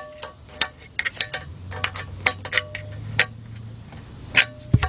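Screwdriver levering a Chevy Suburban's flywheel back and forth through the bell-housing inspection opening: irregular metallic clicks and clinks, some ringing briefly. The flywheel is being checked for play as the possible source of the engine knock.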